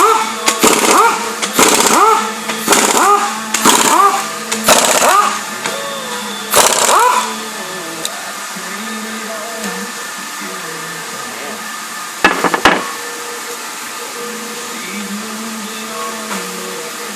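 A power tool run in short bursts about a second apart over the first seven seconds, each burst sweeping up in pitch, then a brief double burst later on, over a steady background hum.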